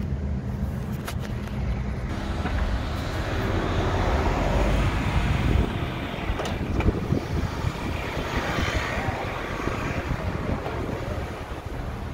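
Car driving through city streets: steady road and engine rumble heard from inside the moving car, with street traffic around it and a few brief clicks.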